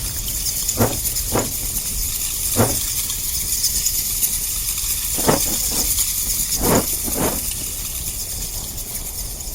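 Cave ambience, a steady airy hiss, with six slow, uneven footsteps on stone: two close together, a single one, a pause, then three more.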